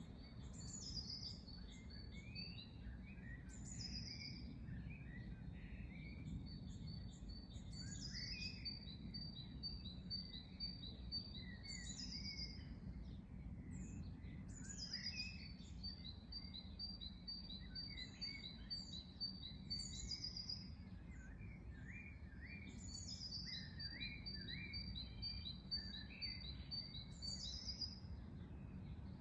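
Birds singing: one bird repeats a high song every two to three seconds, a quick phrase falling in pitch that runs into a steady trill, while other birds chirp lower down. A constant low rumble of background noise lies underneath.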